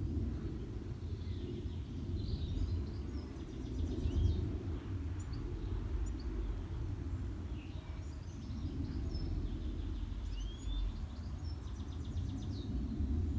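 Outdoor garden ambience: a steady low rumble with scattered short bird chirps and whistled calls.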